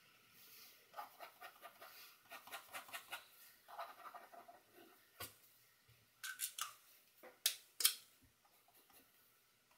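Fine-tip pen scratching on paper in quick, short hatching strokes, followed by a few sharper clicks or taps in the second half.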